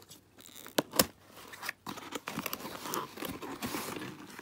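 Cardboard box being opened by hand: a few sharp clicks and knocks as the tuck-in lid is worked free, then a couple of seconds of rustling and scraping cardboard.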